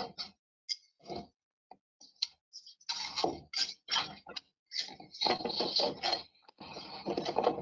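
Hand trowel scraping through and packing semi-dry rapid-set sand-cement screed (ARDEX A 38, mixed to a snowball consistency), heard as a run of irregular gritty scraping strokes, few at first and coming thick and fast from about three seconds in.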